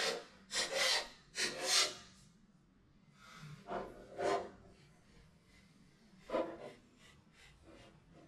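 Lids of a dog puzzle toy scraping and knocking as a small dog pushes and lifts them with its paw and nose to get at hidden treats. Three quick scrapes at the start, then a few more at intervals.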